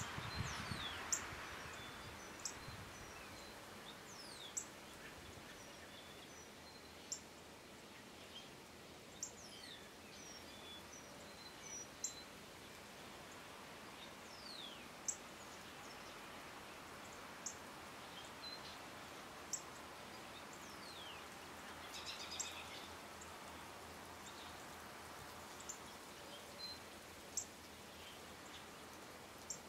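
Faint outdoor ambience: a steady low hiss with short, high bird chirps every couple of seconds, some of them quick downward-sliding notes.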